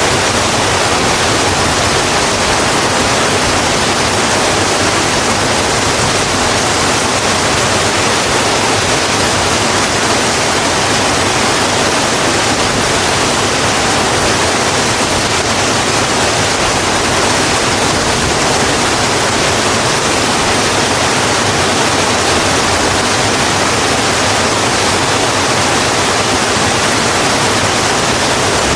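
Steady, even rain falling heavily on a road, a constant hiss without separate drops or thunder.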